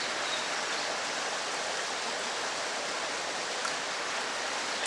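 Steady, even rushing of flowing water, with no breaks or distinct knocks.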